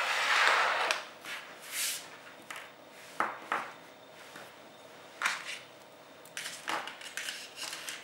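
Clear plastic tray of fiber optic adapters crinkling and rattling as it is handled during the first second, then a scattering of small sharp clicks and taps from a metal FC fiber adapter and plastic dust caps being picked up and set down on a table.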